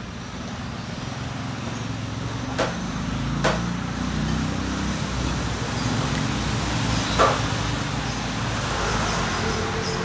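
Motor vehicle engine running nearby as a steady low rumble, its pitch shifting slightly, like passing road traffic. Three short sharp clicks stand out, the loudest near the end of the middle stretch.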